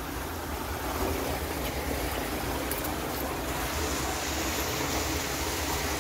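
Steady outdoor wind rushing, with low buffeting on the phone's microphone.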